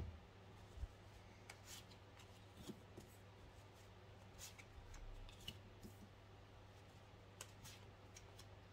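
Faint, scattered flicks and taps of Katina fortune-telling cards being drawn from a hand-held deck and laid on a table, over a low steady hum.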